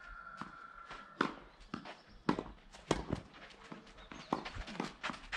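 Tennis ball being struck and bouncing on a clay court: a series of sharp knocks at irregular spacing, with footsteps on the clay. A steady high tone stops about a second in.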